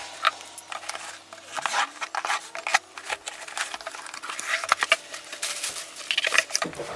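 Handling of packaged pliers: a run of scattered clicks, taps and rustles.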